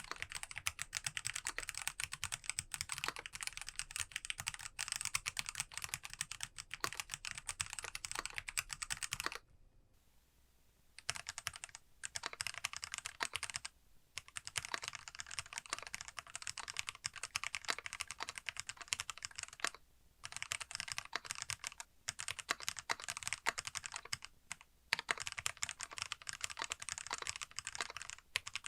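Fast typing on a Monstargear ALU XO V3 mechanical keyboard with lubed Kailh Box Black linear switches and Poron plate and case foam, the keys clacking in dense, continuous runs. The typing stops for about a second and a half about ten seconds in, then resumes with a few short breaks.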